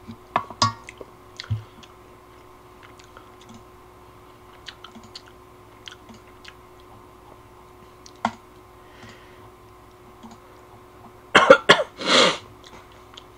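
A person chewing a mouthful of ramen, with scattered small clicks and taps, then a loud cough and throat clearing near the end.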